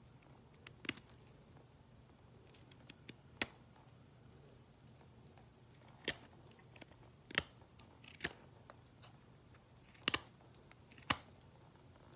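Knife blade carving a block of hardwood, each stroke slicing off a shaving with a short, crisp cutting sound; about seven cuts at irregular intervals, a second or two apart, some in quick pairs.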